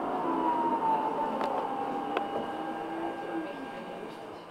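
Munich R2.2 tram running along the track. Its electric traction drive whines, the tones sinking a little in pitch and growing quieter, over the rumble of wheels on rail, with a couple of sharp clicks.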